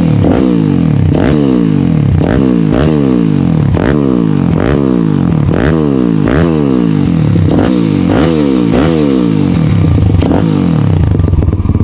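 Piranha pit bike's Daytona 190 four-valve single-cylinder four-stroke engine revved on the stand in quick throttle blips, about one a second, each rising sharply and falling back. It settles to a steady idle near the end.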